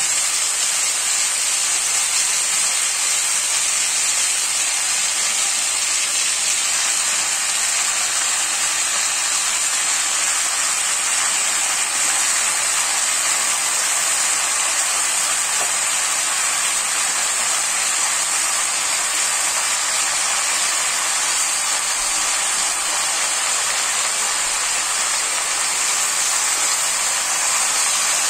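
Diced vegetables frying in hot oil in a metal kadai over a high flame: a steady, even sizzling hiss.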